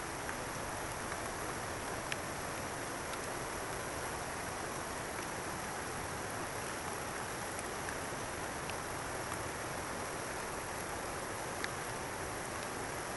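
Steady rush of flowing water, even and unbroken, with a few faint ticks here and there.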